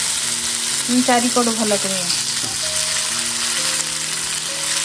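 Besan-and-curd-coated paneer and potato tikka pieces sizzling steadily as they fry in a pan, with occasional stirring.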